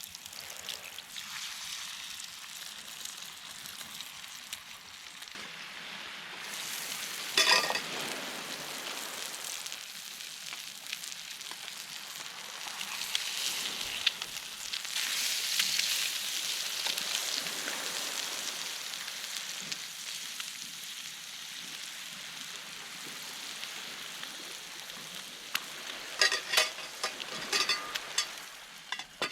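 Food frying in a pan over a campfire: a steady sizzle, with bursts of sharp crackling about seven seconds in and again near the end.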